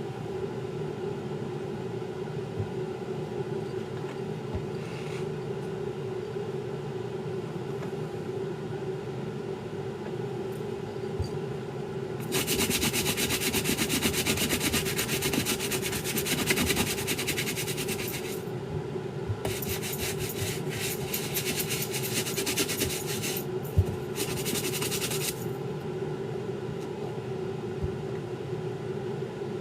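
Rapid, even scrubbing strokes on a sneaker, in three spells starting about twelve seconds in, over a steady low hum.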